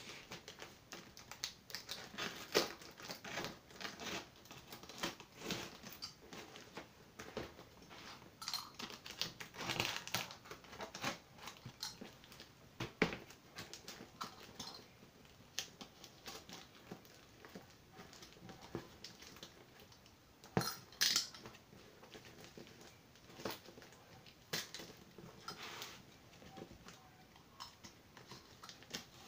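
Box cutter scraping and slicing at plastic packing tape and cardboard on a parcel: irregular scratches, clicks and taps as the box is held and turned, with a few louder snaps and scrapes.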